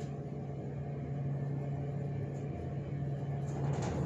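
Steady low hum of a 2003 KONE hydraulic elevator's pump motor running.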